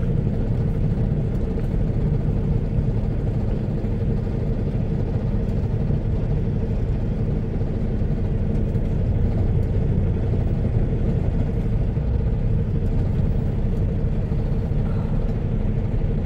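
Steady rumble of a semi-truck's diesel engine and road noise, heard inside the cab as the truck crawls through slow traffic on a wet highway.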